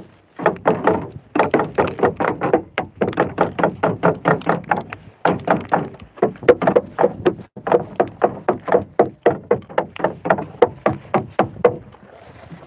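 Fast, steady wooden knocking, about five blows a second with a few short pauses, stopping near the end: the wooden hull of an outrigger fishing boat (bangka) being beaten to scare fish toward the net.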